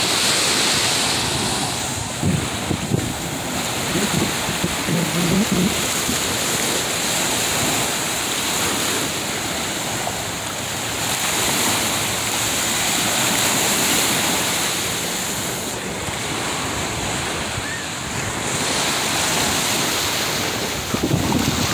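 Small waves washing onto a sandy beach in a steady rush, with wind buffeting the microphone.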